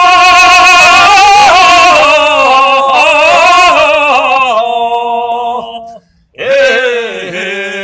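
Loud sung vocal chant in the Goguryeo sori style: one long held note with a wavering pitch, then a steadier tone that breaks off about six seconds in, followed after a short pause by a second held note.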